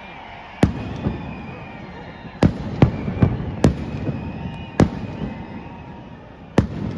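Aerial firework shells bursting: about seven sharp bangs with echoing tails at uneven intervals, a few coming in quick succession in the middle, over a steady background noise.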